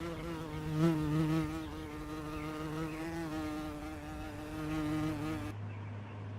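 A buzzing insect droning steadily close up, its pitch wavering slightly, until it cuts off abruptly about five and a half seconds in; a low hum follows.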